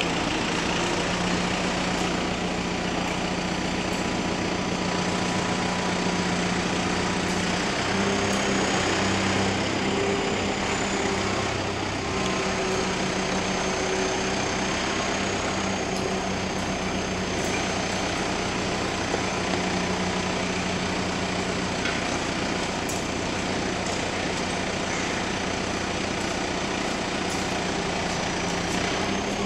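Engine of a truck-mounted aerial work platform running steadily at idle, a continuous hum that shifts slightly in pitch a few times.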